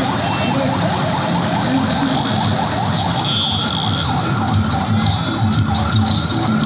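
A siren-style horn wailing in a fast, repeating yelp over the dense noise of a street crowd and motorbikes.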